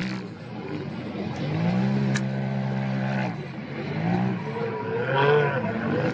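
Off-road race vehicle engine running hard on the course. Its pitch holds steady for a second or so, then rises and falls twice as the throttle is worked.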